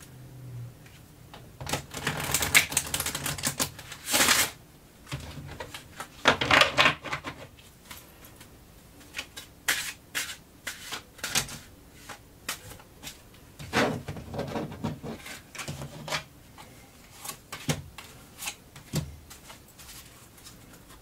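Tarot cards being handled and dealt onto a table: short rustling, sliding runs of cards with sharp snaps and taps as single cards are laid down.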